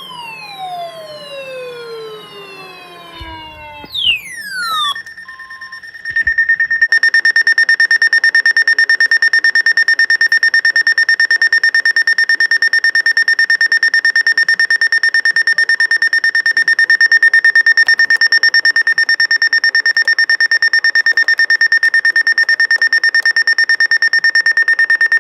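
Weather radio receiver's alert alarm sounding for the NOAA weekly test: a loud, high-pitched electronic beep repeating rapidly and evenly, starting about six seconds in. Before it come a few seconds of falling, sweeping electronic tones.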